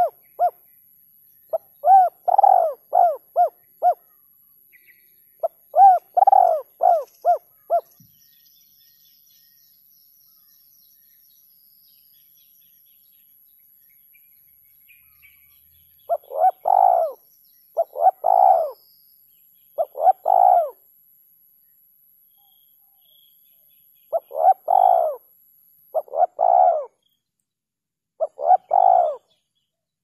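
Spotted dove cooing: phrases of several short, soft coo notes in quick succession. The phrases repeat for the first eight seconds, stop for about eight seconds, then resume.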